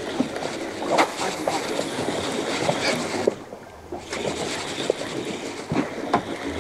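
Wind and sea noise around a small boat, with scattered clicks and knocks as a spinning rod and reel are worked during a topwater lure retrieve; the noise drops briefly a little past halfway.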